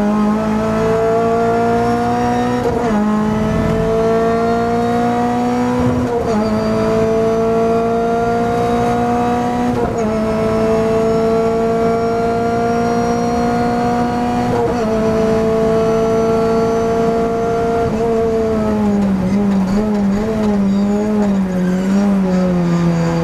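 Renault Clio Cup race car engine heard from inside the cabin, pulling hard through the gears with four upshifts about 3, 6, 10 and 15 seconds in, the pitch climbing steadily in each gear. From about 18 seconds on the car brakes and the engine note wavers and drops as it downshifts for the next corner.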